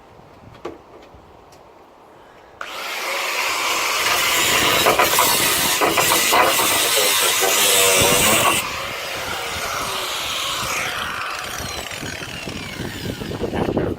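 Power tool cutting through sheet-steel car floor panel. It starts suddenly about two and a half seconds in and cuts loudly for about six seconds, then carries on more lightly with falling pitch lines toward the end.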